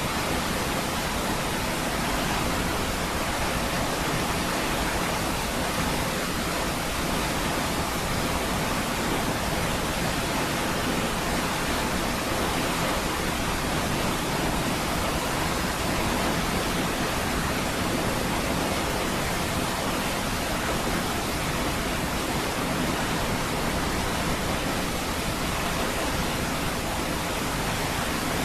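Niagara Falls: the steady, unbroken rush of a large waterfall, even in level throughout, with no other sounds.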